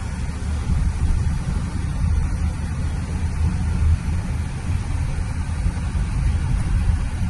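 A car being driven: a steady low rumble of engine and road noise with no sudden changes.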